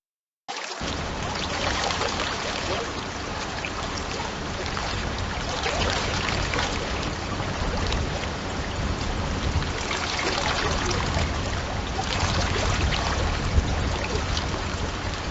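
AI-generated sound effect playing back: a steady, watery rushing noise with a deep rumble underneath, starting about half a second in.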